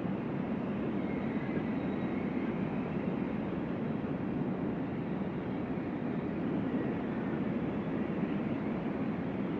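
Strong wind rushing steadily, with a faint whistle in it.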